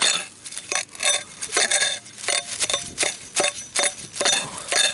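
Small hand digging hoe chopping and scraping into grassy soil in a quick series of sharp strikes, about two or three a second, with a metallic chink to them as the blade digs toward a buried can.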